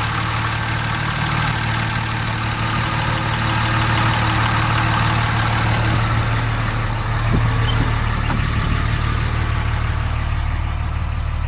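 2006 Ram 3500 pickup's engine idling steadily, just after being started by jumping the starter trigger wire.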